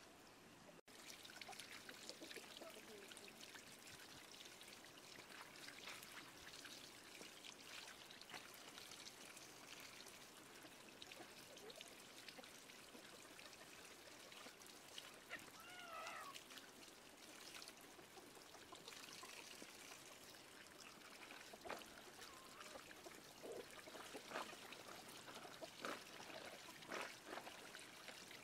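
Faint trickle of water pouring from a bamboo pipe over sliced carrots in a woven basket and green onions being rinsed, with small splashes that come more often in the last third. A short wavering animal call about halfway through.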